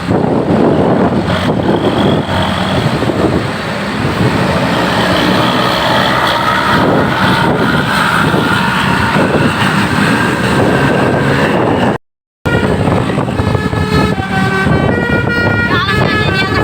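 Tour bus's telolet Basuri musical horn playing long runs of notes over the bus's running noise. The horn tones glide at first, and after a brief dropout about twelve seconds in they step clearly from note to note in a tune.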